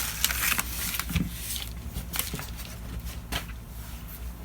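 Retail packaging being opened by hand: irregular rustling and crinkling with scattered small clicks and taps.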